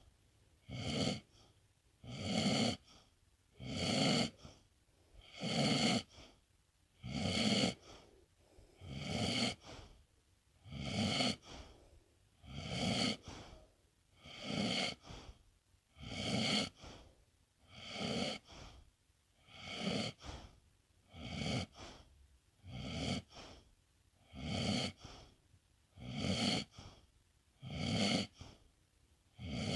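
A sleeping pet snoring: a steady rhythm of noisy breaths, about one every two seconds, with quiet gaps between them.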